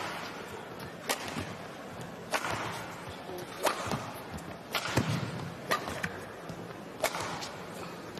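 Badminton rackets striking the shuttlecock in a long rally: a sharp smack about once a second, over a steady murmur of arena crowd noise.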